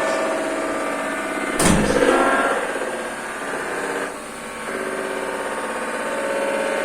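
Bosch Serie 6 washing machine spinning with a metal-like noise, a fast, even rattle from the turning drum. One sharp loud knock comes about a second and a half in.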